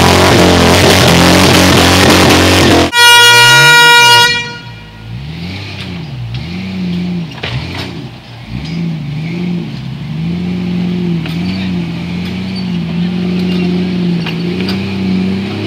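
Off-road 4x4 engine revving hard as it climbs a dirt trail, with spinning tyres throwing dirt. About three seconds in it cuts off for a loud, steady horn-like tone of about a second and a half. After that comes a quieter engine revving up and down at low speed as the vehicles crawl over rocks.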